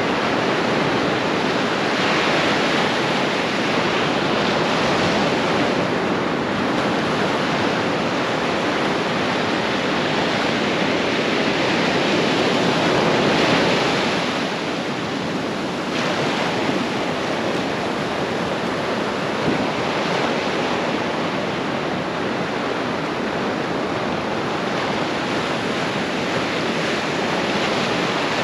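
Ocean surf breaking and washing up a sand beach: a steady rush of water that swells and eases as the waves come in.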